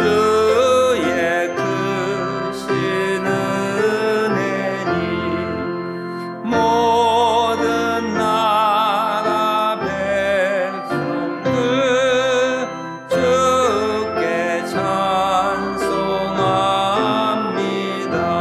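A hymn sung by a congregation, one strong voice with vibrato standing out close to the microphone, over keyboard accompaniment with held chords and bass notes. The singing pauses briefly between lines twice.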